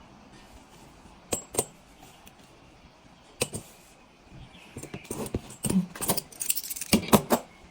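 Stainless steel pipe fittings being handled and knocking together: a few separate clinks, then a rapid run of metallic clinks and rattles over the last few seconds.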